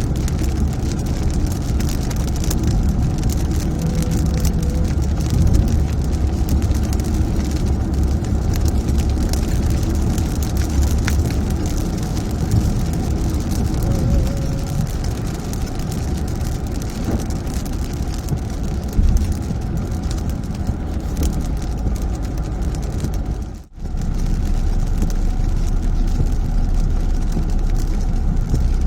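Steady low rumble of a car on the move, with the hiss of heavy rain over it. The sound cuts out for a moment about three-quarters of the way through.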